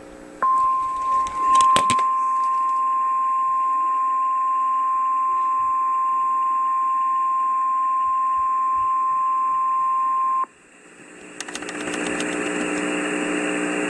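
NOAA Weather Radio 1050 Hz warning alarm tone, the single steady beep that announces a warning (here a flash flood warning), held for about ten seconds and then cut off abruptly. A couple of clicks come about a second and a half in, and a radio hiss rises over the last few seconds.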